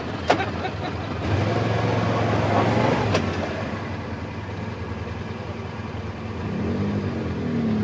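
ATV engine running: it picks up and runs louder from about a second in, then eases back after about three seconds. A sharp click comes near the start.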